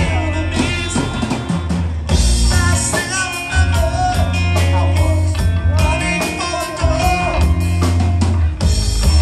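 Live rock band playing: electric guitars over a drum kit, with a strong bass line.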